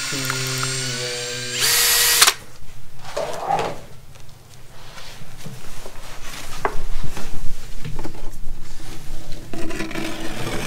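Power drill spinning a mixing rod in a cup of two-part expanding foam, its motor whine stepping up and down in pitch, then stopping about two seconds in after a short burst of hiss. Irregular rustling and handling noise follows and grows louder toward the end.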